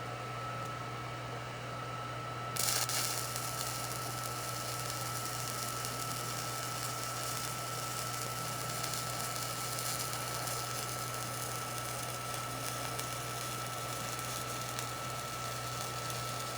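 Electric arc welding on steel: the arc strikes about two and a half seconds in and crackles and sizzles steadily, over a constant hum with a thin high tone.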